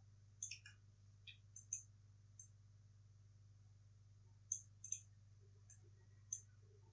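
Computer mouse clicking sparsely and irregularly: about a dozen short sharp clicks, some in quick pairs, grouped around half a second in, around two seconds in and around five seconds in. A faint steady low hum lies under them.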